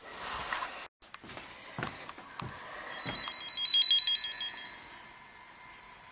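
Tone tracer probe ('fox and hound') held at a thermostat wire, sounding a rapid beeping tone that alternates between two high pitches, starting about three seconds in and fading about two seconds later: the probe is picking up the tone generator's signal on that wire. A short rustle of handling noise comes about a second before the cut to the probe.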